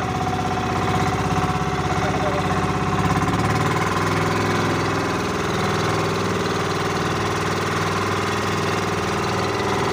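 Boat engine running steadily, with a change in its note about three and a half seconds in.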